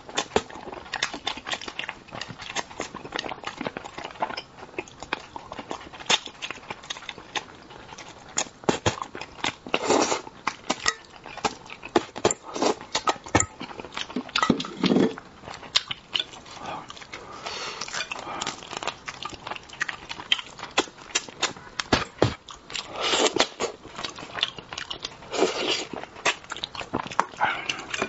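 Close-miked eating of spicy braised crucian carp: wet chewing, lip-smacking and sucking with many quick irregular clicks, and a few louder slurping smacks.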